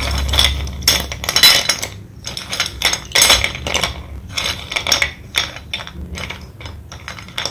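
Thick slate pencil sticks clattering and clinking against one another and the plate as a hand rummages through them. The first two seconds are a dense rattle, and after that comes a run of separate clicks.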